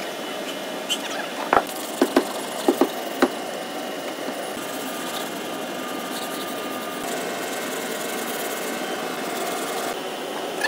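Sanding block scraping over body filler on a car's rear quarter panel: a steady, scratchy sanding hiss over a faint steady hum, with a handful of sharp taps about two to three seconds in.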